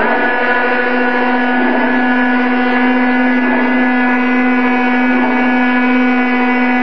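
Mini CNC milling machine's brushless spindle motor running at steady high speed as the end mill cuts a yellow plastic plate: a constant whine with several higher overtones over a rough cutting noise.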